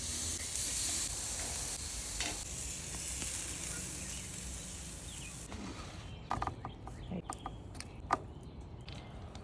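Seafood sizzling on a hot grill, a steady hiss that stops about five and a half seconds in. A run of light clicks and clinks follows, with one sharper knock near the end.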